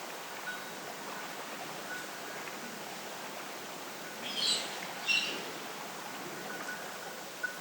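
Steady wash of wind and sea on a night harbour shore, with two short high chirps a little past halfway through.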